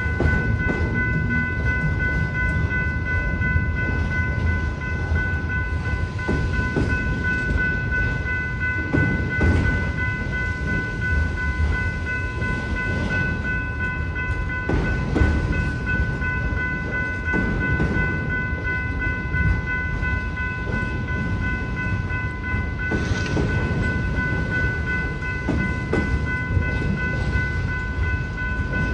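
Autorack freight train cars rolling through a grade crossing: a steady low rumble with scattered clacks as the wheels cross the rails, over a constant high-pitched tone.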